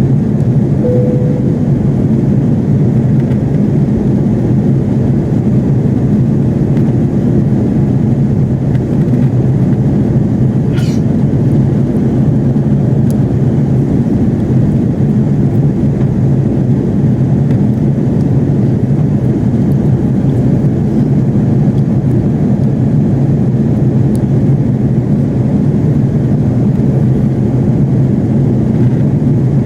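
Steady low drone of an Airbus A330-300 cabin in flight: engine and airflow noise, unchanging throughout. A brief steady tone sounds about a second in.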